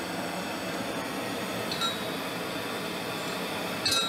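Two metallic clinks as a steel rod knocks against the inside of an upright steel pipe while it is lowered in, a small one a little under two seconds in and a louder, ringing one near the end, over a steady hiss.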